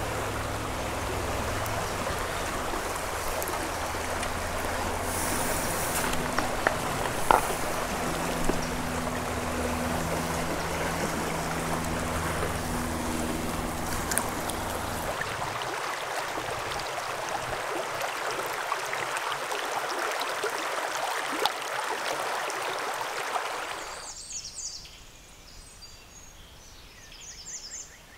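Steady rush of a shallow, rocky river running over riffles, with a single sharp tap about a quarter of the way in. About four seconds before the end it cuts to a much quieter, calmer stretch of water with birds calling.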